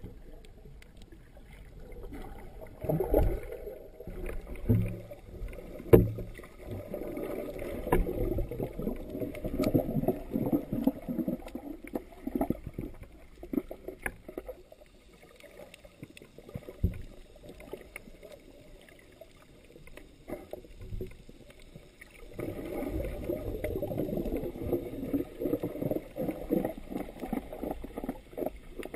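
Muffled underwater sloshing and rushing of water, heard through a sealed GoPro dive housing, in uneven surges from the swimmer's movement. There is a sharp knock about six seconds in, and the sound dies down for several seconds in the middle.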